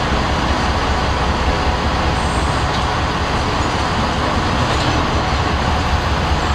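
KiHa 58 diesel railcar train rolling slowly along the platform: a steady, loud drone of its diesel engines and wheels on the rails.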